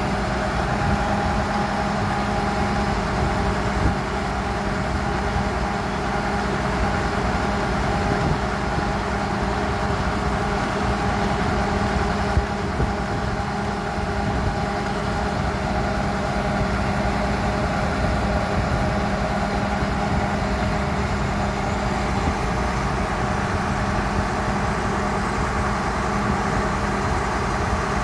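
Horizontal directional drilling rig's engine running steadily, with a higher steady whine over it that stops about two-thirds of the way through.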